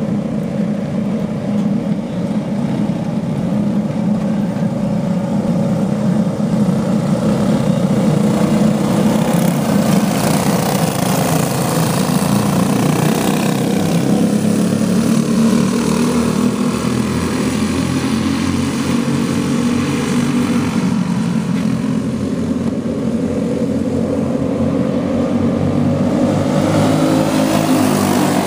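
A pack of racing go-kart engines running hard on a dirt oval, a steady mix of small engines at high revs. Near the end the karts pass close by, and their engine notes sweep in pitch as they go past.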